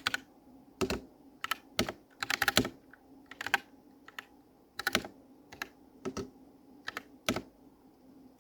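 Computer keyboard keys being pressed and clacking in irregular single clicks and short quick runs, with short pauses between.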